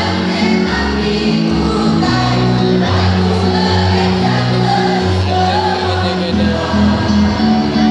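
Mixed choir of men and women singing to amplified backing music through PA speakers, with held bass notes changing about once a second.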